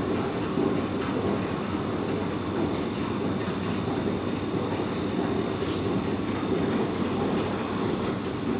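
R160B subway train approaching through the tunnel: a steady low rumble with faint clicking from the wheels on the rails, and a thin, steady high tone.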